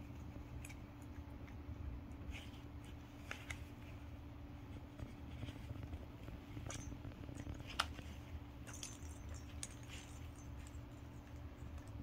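Small bell inside a toy ball jingling in short, scattered tinkles as a cat bats it around inside a cardboard accordion scratching board, the loudest jingle about eight seconds in, over a low steady hum.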